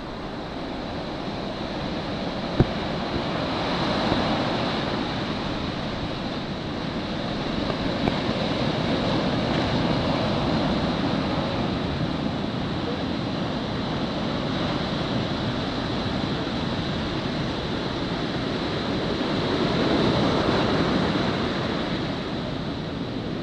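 Ocean surf from a typhoon swell: a continuous rush of breaking waves that swells louder three times, about 4 seconds in, around 9 to 11 seconds and near 20 seconds, with one brief knock about two and a half seconds in.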